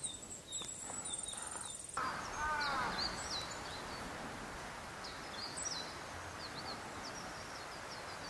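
Small birds chirping in short, high, repeated calls over a steady outdoor hiss, with a lower falling call about two seconds in.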